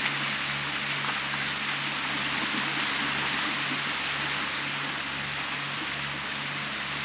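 Shallow surf on a sandy beach: small waves breaking and washing in and out, making a steady hiss with no distinct breaks.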